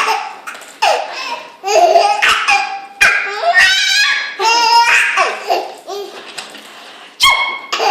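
Five-month-old baby laughing in several loud bouts of belly laughs, with short pauses between them.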